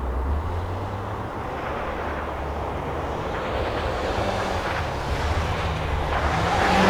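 Rally car engine running hard, its pitch shifting in steps, growing louder toward the end as the car approaches.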